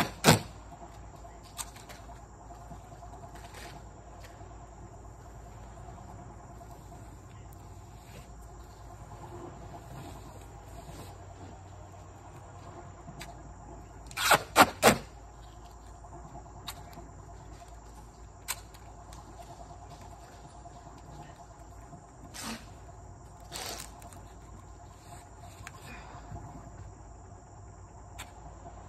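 Tape being pulled off a roll in short, loud rips: one right at the start, three in quick succession about halfway through, and two fainter ones later. Steady high-pitched insect chirring runs underneath.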